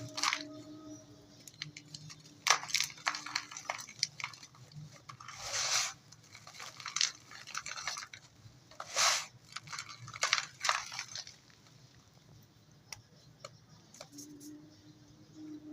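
Dry dirt clumps crumbling: a series of gritty crunches with pauses between them, the strongest runs about halfway through and again around nine seconds in.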